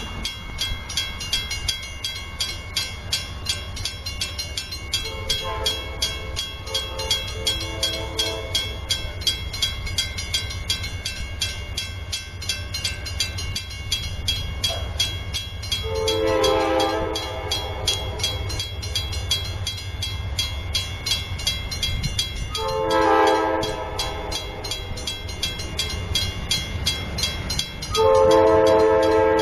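Grade-crossing bell ringing rapidly and steadily while an approaching Amtrak diesel locomotive sounds its multi-note horn several times, faint at first and much louder near the end, over a low engine rumble.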